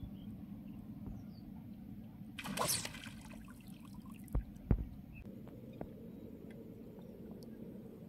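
A brief splash of water, under a second long, about two and a half seconds in, as a wading angler works his rod line in the river. Two dull knocks follow about a second and a half later, over a steady low background rumble.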